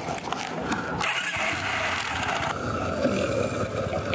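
Kawasaki W650's air-cooled parallel-twin engine running, with a hissing noise that comes in abruptly about a second in and stops about halfway through.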